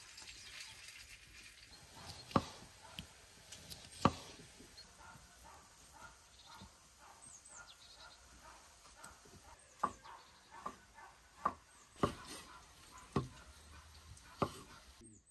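A knife chopping on a cutting board: about ten single sharp knocks at irregular intervals, spaced roughly a second or more apart.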